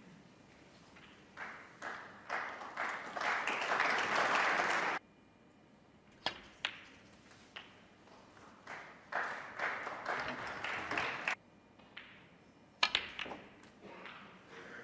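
Two bursts of audience applause in a large hall, each cutting off abruptly, with sharp clicks of snooker balls striking one another between them.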